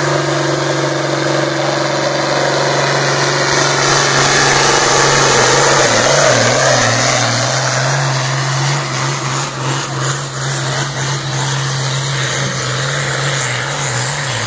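Turbocharged diesel engine of an International Harvester pulling tractor at full power, dragging a weight-transfer sled, with a high turbo whistle rising over the first few seconds. The engine note holds steady while the sound swells to its loudest about six seconds in, then eases off as the tractor pulls away.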